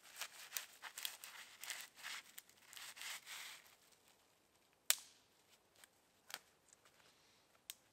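Small twigs being broken off branches by hand: a run of crackling and rustling, then three separate sharp snaps in the second half.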